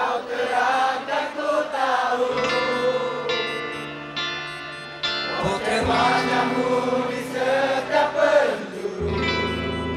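Live rock band playing: electric guitars and bass under singing voices, heard from within the audience. A heavy bass part comes back in about nine seconds in.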